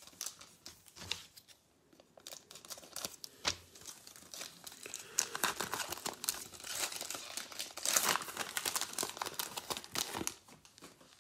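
Foil wrapper of a trading-card pack being torn open and crinkled in the hands: a few light handling clicks at first, then about eight seconds of dense crinkling and tearing, loudest near the end.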